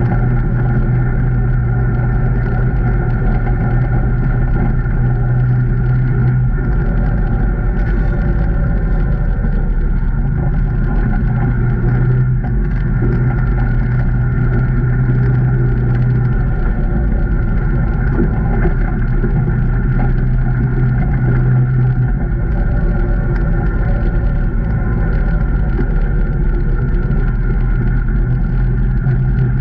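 A 2019 Can-Am Maverick Trail 800 side-by-side's V-twin engine running under way on a trail, a steady drone whose low hum swells and eases several times.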